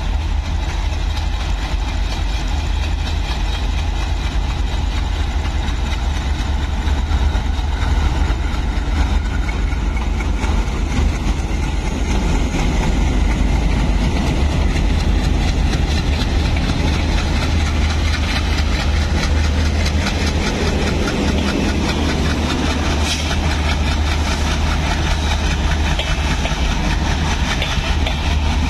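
Twin WDM-3D diesel-electric locomotives' ALCO engines running under power as they pull an express train away from the station and pass close by, with a deep, steady rumble.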